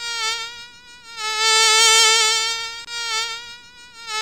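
Buzzing insect sound effect: one steady, high-pitched whine that swells and fades, loudest about two seconds in, as if flying close past.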